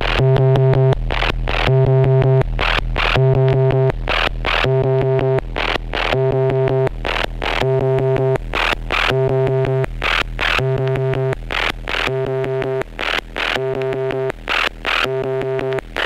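Twintropiques 23 Psychoacoustic synthesizer playing a looping patch: a low bass note alternating with a higher, buzzing pitched tone, with short noisy percussive hits on top. The pattern repeats about every second and a half.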